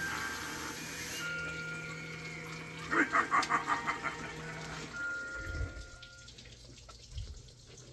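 A Halloween popcorn-machine animatronic running as its clown head sinks into the popcorn: a steady hiss, a quick run of about six sharp pulses about three seconds in, and a few low thumps near the end as the hiss dies away.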